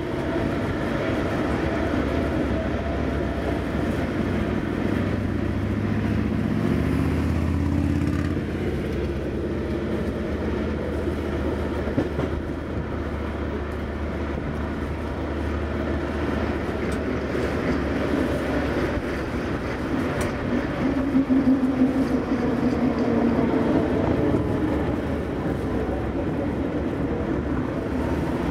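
A 1904 ASEA-built electric tram running on street track, its wheels rolling on the rails. A low motor hum rises in pitch twice, as the tram gathers speed, with an occasional click from the rails.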